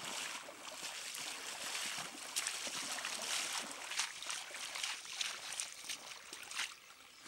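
Legs wading through shallow lake water, an uneven run of splashes and sloshes.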